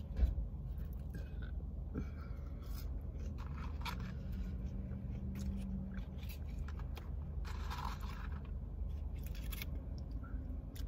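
Scattered light clicks, scrapes and a rustle of paper fast-food packaging and plastic sauce cups being handled while eating fries, with a longer rustle about two-thirds of the way through, over a steady low hum.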